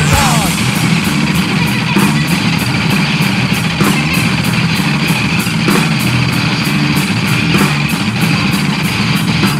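Indie rock song in an instrumental stretch: electric guitar over a fast, steady beat. A sung line trails off about half a second in.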